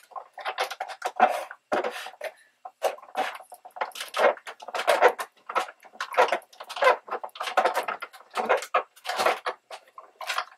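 Rustling and shuffling of paper and craft supplies being handled, in quick irregular bursts.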